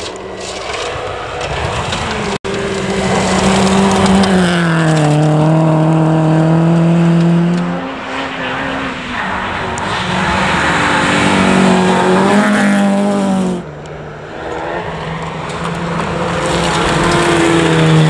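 Rally car engines at full throttle on a gravel stage, revving up and dropping sharply at each gear change, several times over, with a hiss of gravel and tyres under them.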